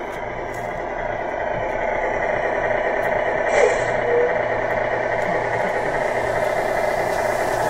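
Tamiya radio-controlled semi truck driving, with a steady, finely pulsing engine-like running sound. There is a brief chirp about three and a half seconds in and a short tone just after.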